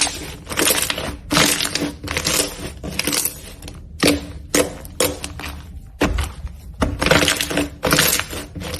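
Slime being squished and pressed, crackling and popping in quick repeated bursts, about two a second.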